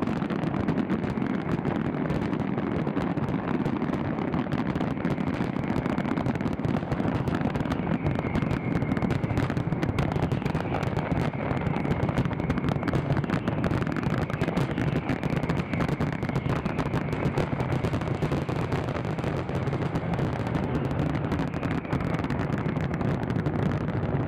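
Fireworks barrage: a steady, dense run of overlapping bangs and crackles with no single standout burst.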